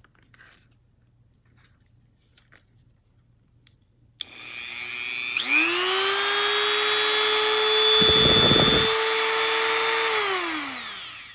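Dremel 200 two-speed rotary tool with a cut-off wheel, run free in the air. It switches on with a click a little after four seconds in, steps up to a higher steady whine about a second later, then is switched off and the whine falls away as it spins down.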